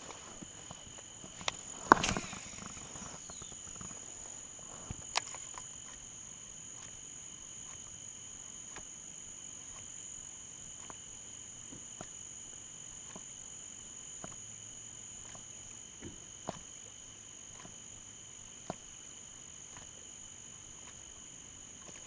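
Steady chorus of insects, two continuous high-pitched trills holding unbroken throughout, with scattered sharp clicks and a louder knock about two seconds in.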